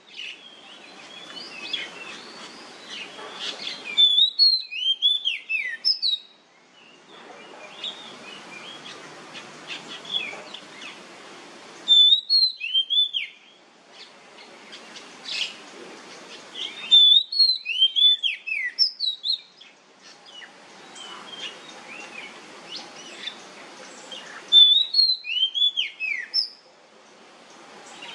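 Oriental magpie-robin (kacer) singing loud, sweeping whistled phrases in bursts of one to two seconds, four times, several seconds apart. Between the phrases a steady hiss of background noise cuts in and out abruptly.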